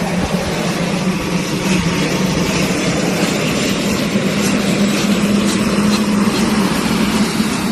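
Helicopter running steadily: a loud, even engine-and-rotor roar with a strong drone whose pitch creeps up slightly about halfway through.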